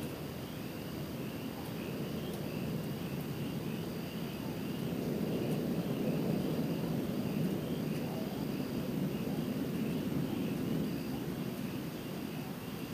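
Distant thunder rolling: a long low rumble that builds to its loudest about halfway through and then slowly fades.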